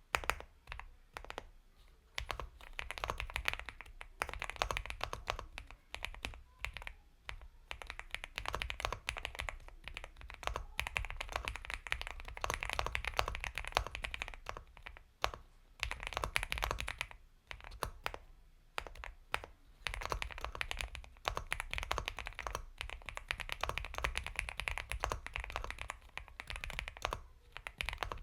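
Continuous typing on a mechanical keyboard with Gateron Milky Yellow Pro linear switches in an Epomaker x Feker Galaxy 80, a soft, creamy clatter of rapid keystrokes in flurries with short pauses between them.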